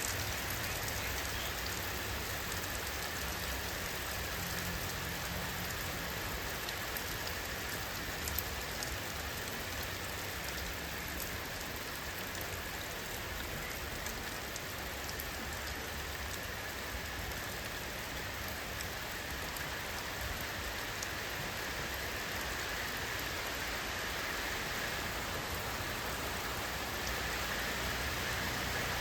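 Steady rain falling, an even hiss with scattered ticks of single drops.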